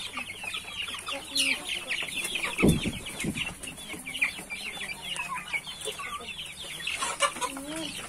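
A flock of young chickens, black Ayam Cemani among them, calling without pause in short high cheeps that fall in pitch, many a second, with a few lower clucks near the end. A dull thump about two and a half seconds in.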